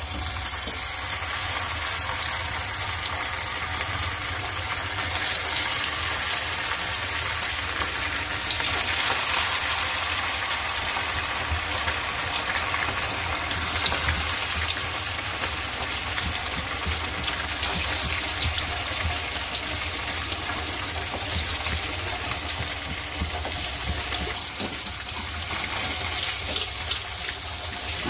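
Masala-coated fish pieces deep-frying in hot oil in a small steel kadai: a steady sizzle that comes up as the first piece goes into the oil and keeps going.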